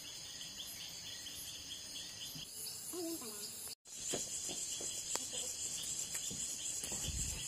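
Insects chirping in a steady, pulsing chorus, broken by a short gap of silence a little past halfway. A few light knocks follow the gap.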